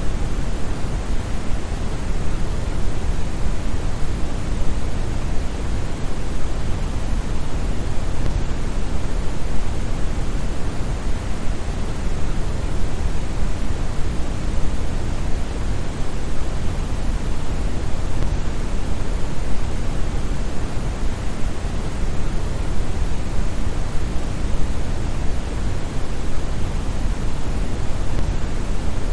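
Synthetic brown noise: a steady, deep hiss with most of its energy in the bass, like a distant waterfall.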